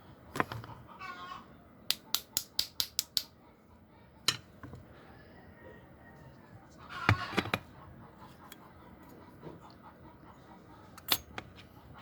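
A quick run of about eight sharp clicks, several a second, with scattered single clicks and a short pitched call, voice-like or animal-like, near the middle.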